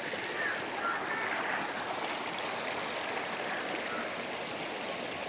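Shallow stream running over rocks and pebbles: a steady rushing of water.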